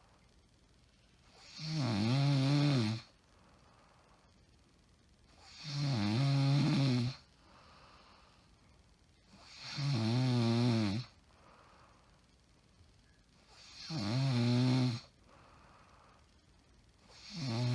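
A woman with sleep apnea syndrome snoring in her sleep. Each snore is a pitched, buzzing sound about a second and a half long, coming regularly about every four seconds, with quiet between: four in all, and a fifth begins near the end.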